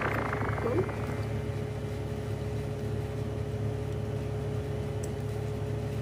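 Background electronic music in a quiet, beatless stretch: a steady low droning pad with a few held tones.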